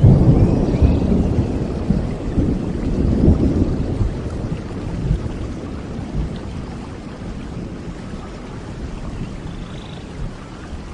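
Steady rain with a roll of thunder that is loudest at the start and dies away over several seconds, leaving the rain alone.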